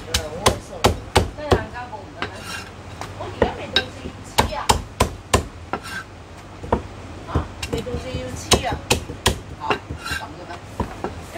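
A heavy Chinese cleaver chopping a cooked chicken, bone and all, on a thick round wooden chopping block. The chops are sharp and irregular, in quick runs of three or four a second with short pauses between them.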